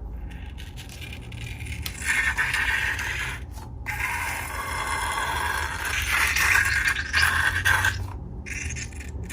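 Scraping and rubbing in uneven bursts, with short breaks in between.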